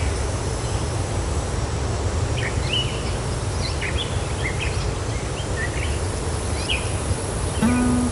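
Outdoor nature ambience: a steady low rumble and hiss with scattered short bird chirps. Music comes in near the end with a held note.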